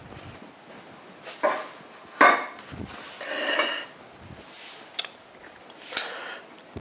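Kitchen handling noises: a few separate knocks and clinks of dishes and cutlery on a wooden worktop, the loudest a little over two seconds in, with a spoon ticking against a small ceramic pot near the end.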